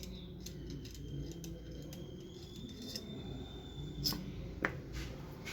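Small metallic clicks and scrapes of a screwdriver working the side screw of a blender motor's bearing housing, with two sharper clicks about four seconds in.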